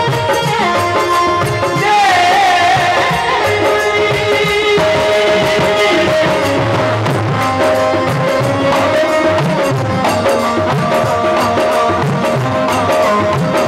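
Male vocalist singing live into a microphone in a Hindi folk-devotional style, with a wavering, ornamented held note about two seconds in, over drum accompaniment.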